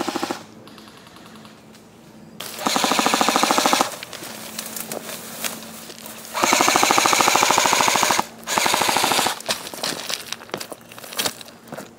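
Airsoft guns firing on full auto in rapid bursts: one of just over a second, one of nearly two seconds, then a short one, with scattered sharp ticks near the end.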